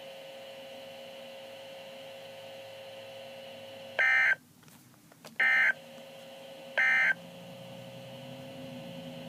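Weather radio receiver sending three short, loud digital data bursts, each well under half a second and about a second and a half apart, typical of the EAS/SAME end-of-message code that closes an alert broadcast. Before the bursts there is a faint steady hum and hiss of dead air.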